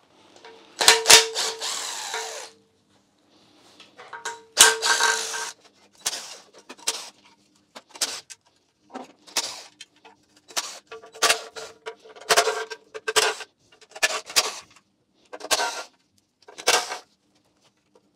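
DeWalt cordless power driver with a socket extension spinning out the 8 mm sump bolts of a Mini Cooper S N14 engine. It makes two longer runs near the start, then a quick string of short bursts about one a second, one per bolt.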